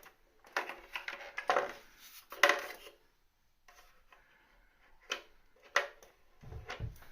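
Irregular clattering and knocks of hard objects being handled, loudest about two and a half seconds in, then two sharp clicks and a low rumble near the end.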